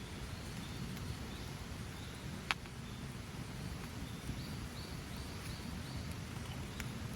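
Outdoor ambience with a steady low rumble and a run of short high chirps, about three a second, from about three and a half seconds in to about six seconds in. One sharp crack about two and a half seconds in.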